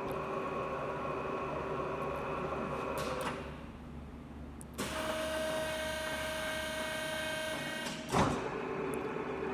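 Leblond Makino Regal servo-shift lathe running under power, a steady mechanical drone with a gear whine. About three seconds in it winds down and goes quieter, then near five seconds it starts up again abruptly with a whine of a different pitch, as at a speed change; a short knock near eight seconds, after which it runs on steadily.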